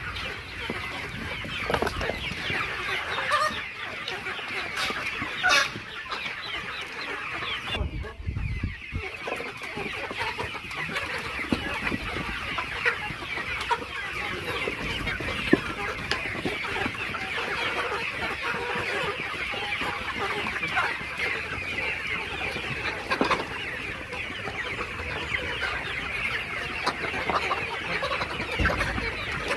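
A flock of ten-week-old layer chickens clucking and chirping continuously, many birds calling at once, with a few scattered knocks.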